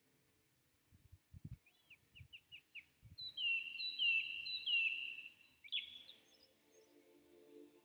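Birds calling: a quick run of about five short chirps, then several longer whistled notes that fall in pitch. Faint steady music tones come in near the end.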